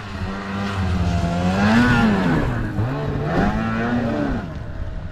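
Snowmobile engine revving as the sled rides over jumps, its pitch rising and falling twice with the throttle.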